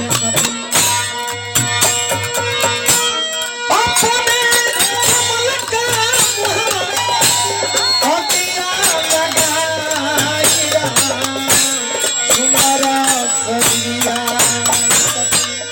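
Bhojpuri nirgun folk music between sung lines: fast, steady percussion, with a gliding melody line that comes in about four seconds in.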